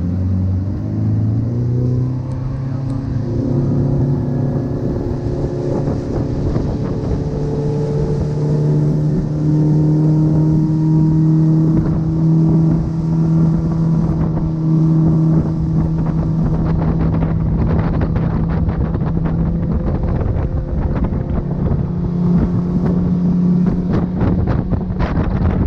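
Small boat's outboard motor speeding up over the first few seconds, then running steady at speed, with wind on the microphone. In the second half, many short thumps come through.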